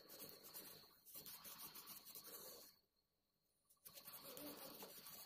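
Faint rubbing and rustling of a cotton wad wiping a brass torch head in the hands. It stops for about a second midway, then resumes.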